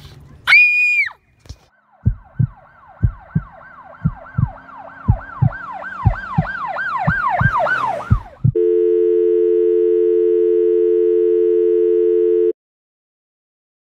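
Dramatic sound-effect sequence: a short, high screech, then a swelling run of siren-like falling wails over paired, heartbeat-like thumps about once a second, ending in a steady low electronic tone that holds for about four seconds and cuts off abruptly.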